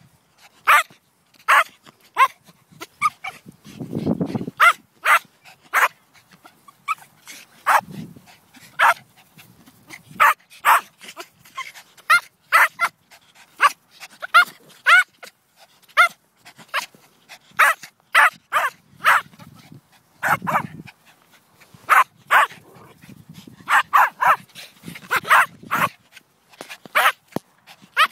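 Small terriers barking non-stop in short, sharp yaps, about two a second.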